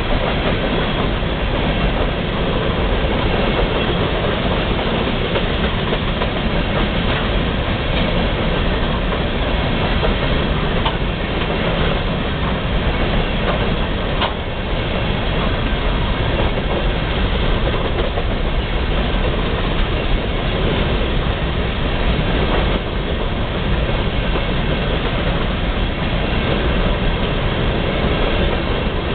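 A long string of open-top hopper cars rolling past: a steady rumble of steel wheels on rail, with a few sharp clacks from the wheels here and there.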